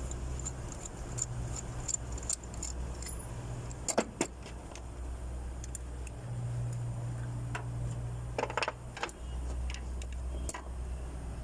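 Metal clinks and rattles of hand tools and parts during spark plug and ignition coil work, with the sharpest knocks about four seconds in and again near eight and a half seconds, over a steady low hum.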